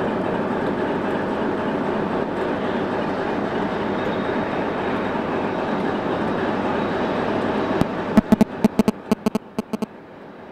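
Class 60 diesel locomotive, with its Mirrlees eight-cylinder engine, working a freight train on the approach: a steady engine drone and rumble. Near the end comes a quick run of about ten sharp clicks, and the drone drops away.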